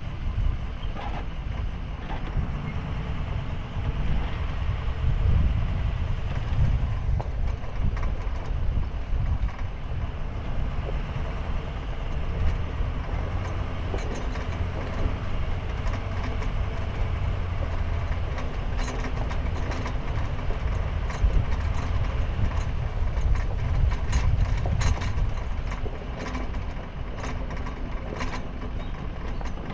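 Sportsmobile camper van driving, heard from a camera on its roof: a steady low rumble of engine and tyres, with scattered clicks and knocks that grow more frequent in the second half.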